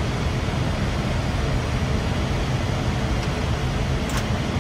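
Steady flight-deck noise of an Airbus A320 on final approach: a continuous rushing of air over a low rumble. A faint click sounds near the end.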